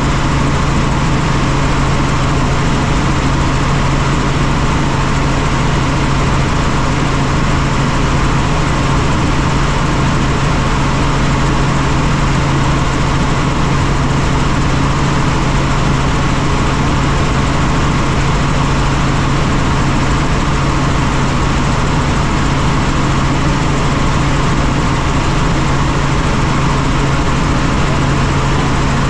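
Helicopter in steady flight: an even, loud drone of engine and rotor noise with a strong low hum.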